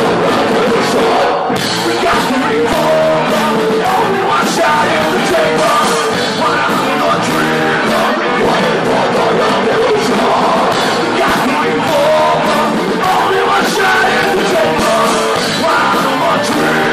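Live rock band playing loudly, with guitar, drums and a lead vocal.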